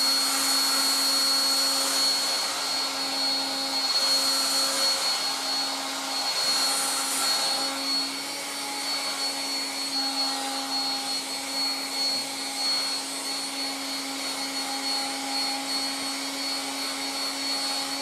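1960s Dateline DLMD hairdryer running steadily: its motor hums under a broad rush of air, getting a little louder and softer as it is moved about over the head.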